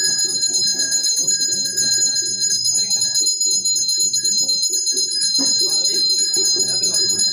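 A bell ringing on and on, a steady high ringing with several bright tones, over voices.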